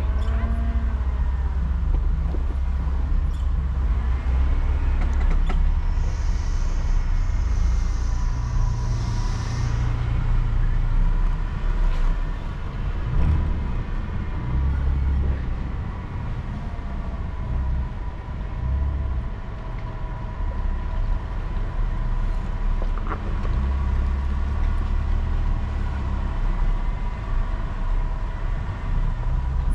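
Off-road vehicle driving a dirt trail: engine running with a heavy low rumble and revs that rise and fall. A hiss comes in for a few seconds about six seconds in.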